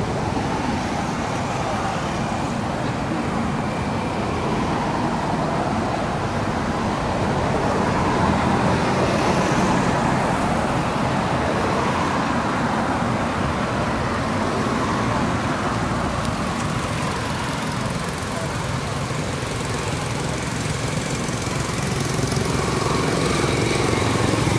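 Steady engine noise of motor vehicles running, with little change in level.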